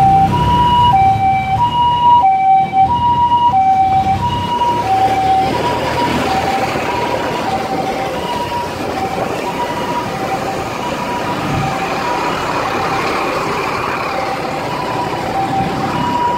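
Two-tone hi-lo emergency-vehicle siren, switching between two pitches about every two-thirds of a second. It grows fainter in the middle and louder again near the end, over the low rumble of road traffic.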